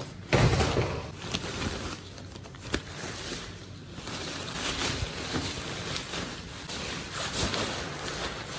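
Wind rushing over the microphone, with a rushing noise that swells and fades and is loudest just after the start.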